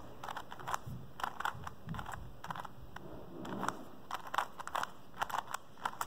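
Plastic 3x3 Rubik's cube being twisted through an algorithm: a quick, uneven run of light clicks and clacks as the layers turn.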